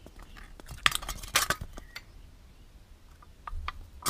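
Thin aluminium drink can crackling and tearing apart by hand along a scored line, in a few scattered crackles and light metal clicks, with a sharp click at the very end.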